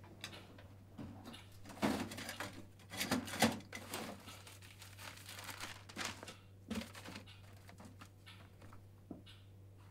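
Papers rustling and crinkling as hands rummage through them, in irregular bursts with a few soft knocks of things being moved.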